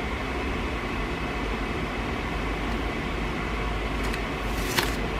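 Steady background hiss with a low hum, room tone between narration, with one faint click near the end.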